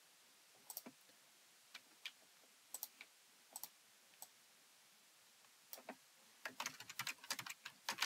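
Computer keyboard keys clicking: a few scattered key presses in the first half, then a quick run of typing from about six seconds in.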